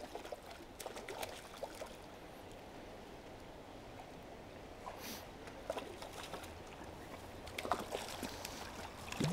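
Faint running water of a small stream, with a few light splashes as a hooked trout thrashes at the surface.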